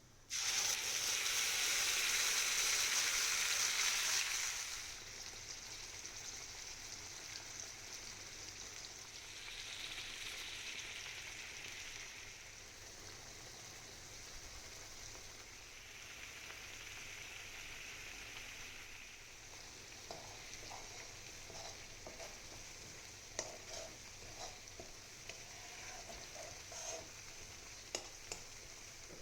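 Food hitting hot fat in a pan with a sudden loud sizzle that settles after about four seconds into steady frying. In the last third, short clicks of a spoon stirring against the pan.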